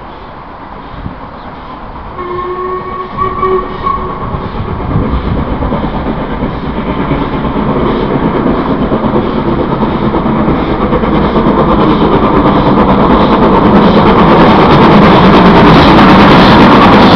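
LMS Jubilee class three-cylinder 4-6-0 steam locomotive working under steam, its exhaust beats growing steadily louder as it approaches and draws level. A whistle sounds for about two seconds near the start.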